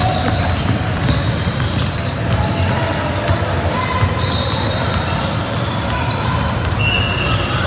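Many basketballs being dribbled at once on a hardwood gym floor, an overlapping, irregular run of bounces with no pause.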